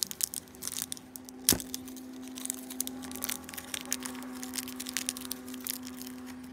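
A thin crinkly wrapper being torn and peeled open by hand off a sticky toy figure: dense small crackles, with one sharper crack about a second and a half in.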